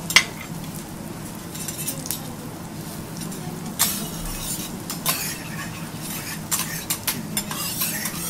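Sweet potato and carrot slices sizzling in melted butter on a steel teppanyaki griddle, with sharp clinks of metal spatulas striking and scraping the plate several times.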